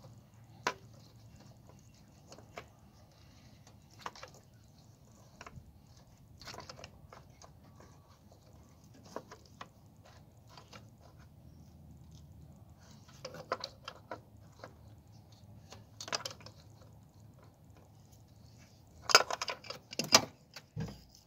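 Pliers and small engine parts clicking and clanking while a hose and its clamp on a PCV valve are worked. Light clicks come every second or two, with a louder burst of clanks about two seconds before the end.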